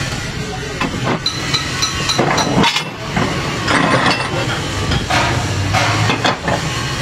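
Steel tools and parts clinking and knocking against a truck clutch pressure plate's cover as it is worked on by hand. There are several sharp metal knocks, one of them ringing briefly, over a steady low hum.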